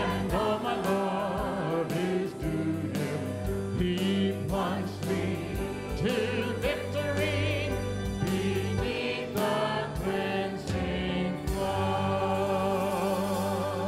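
Church choir and congregation singing a hymn over instrumental accompaniment: a steady bass line, regular chord strikes on the beat, and voices with vibrato, ending on long held notes.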